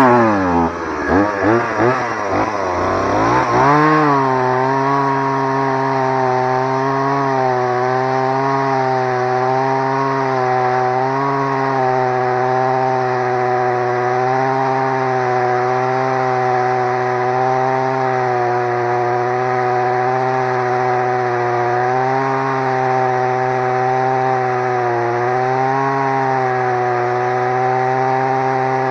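Stihl MS 180 two-stroke chainsaw revving up and down for the first few seconds, then held at full throttle and cutting through a thick tree trunk, its pitch steady with small dips now and then as the chain bites.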